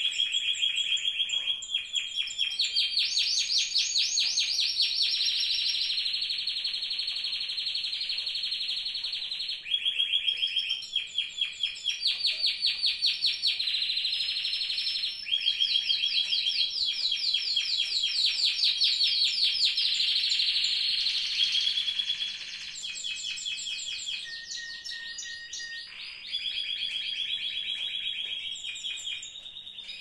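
Spanish timbrado canary singing a long song of rapid rolled trills, each held a second or two before switching to another pitch. After about 22 seconds the song turns quieter and more broken.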